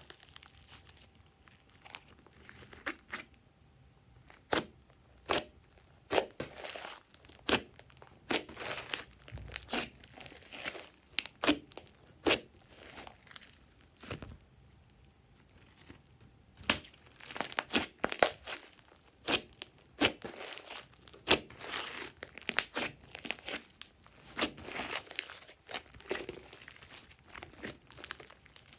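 Hands squishing, folding and pressing glossy slime, giving off irregular sticky clicks and crackles as the slime is squeezed and pulled. There is a quieter stretch about halfway through.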